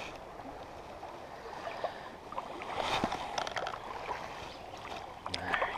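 Creek current running, broken by scattered splashes and clicks as a hooked rainbow trout thrashes near the surface during the fight, most of them around halfway through and again near the end.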